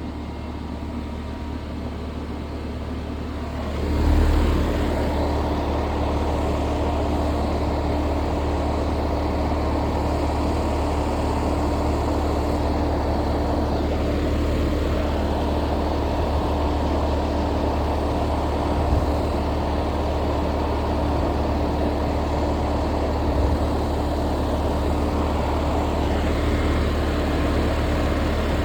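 Outdoor unit of a 3-ton central air conditioner running steadily, its condenser fan noise over a low compressor hum, running normally. About four seconds in it gets louder and a steady mid-pitched hum joins in.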